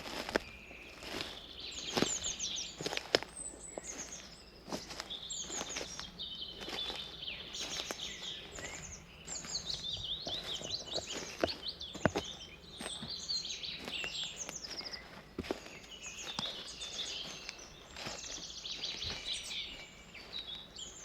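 Many forest songbirds singing and chirping at once, with fast trills and overlapping calls, over the slow, uneven taps of footsteps on a path.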